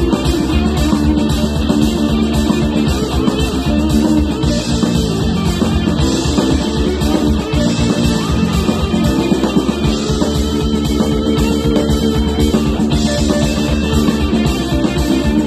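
Live rock band playing loudly: electric guitar, bass guitar and drums.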